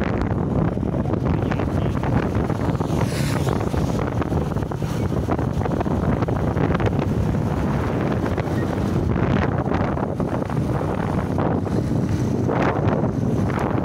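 Steady, loud wind buffeting the microphone of a phone carried on a moving motorcycle, with the motorcycle's running and road noise underneath. A brief wavering higher sound comes through about three seconds in.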